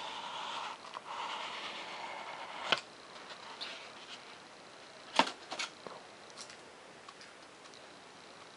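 Foam-board model airplane parts being handled: a soft rustling for the first couple of seconds, then a few sharp taps and knocks as the foam piece is moved and set down on paper, the loudest about five seconds in.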